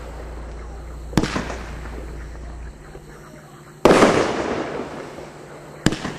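Shots from a Winda 'Thump Junkie' 10-shot consumer fireworks cake. A sharp launch thump comes about a second in, a loud aerial shell burst about four seconds in fades out slowly, and another launch thump comes near the end.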